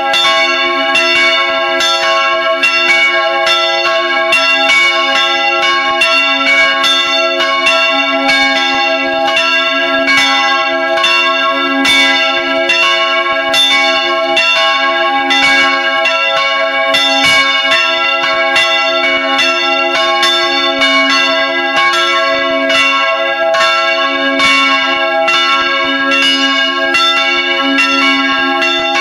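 Several church bells ringing together in full peal, heard close up in the bell chamber. The bells are swung by electric motors, and their strikes follow one another steadily without a break.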